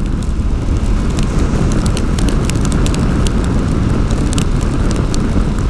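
Strong wind rushing over the microphone of a motorcycle riding at speed through a rainstorm, with many sharp ticks of raindrops striking near the microphone.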